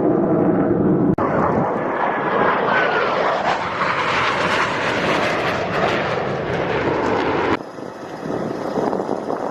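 Loud jet aircraft engine noise from Blue Angels jets in flight, cut together from several shots: the sound changes abruptly about a second in and again near the end.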